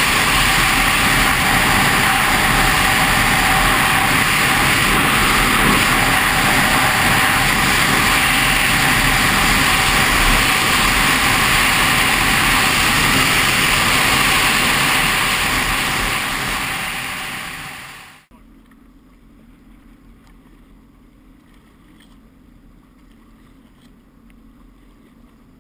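Sea-Doo RXT 260iS jet ski running at speed, a loud steady rush of engine and water. It tapers off about fifteen seconds in and drops away abruptly at about eighteen seconds, leaving only quiet water noise.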